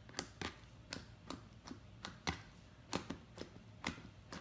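Thick, putty-like slime being squeezed and worked in the hands, giving off short, sharp clicks and pops, irregular, about two or three a second.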